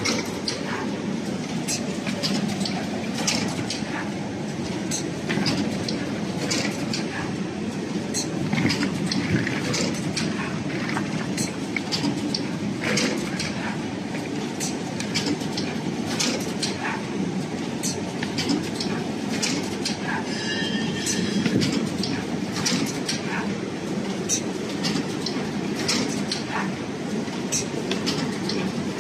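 Automatic rigid box making machine running: a steady mechanical rumble with frequent sharp clicks and clacks from its moving parts as it forms small boxes.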